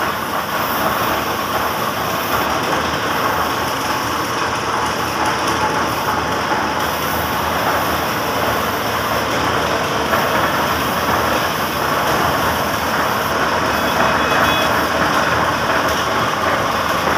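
Gravity-feed air spray gun hissing steadily as it sprays paint.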